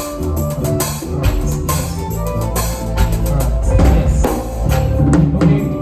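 Music: a band with pitched sustained notes over a steady beat of drums and percussion strikes.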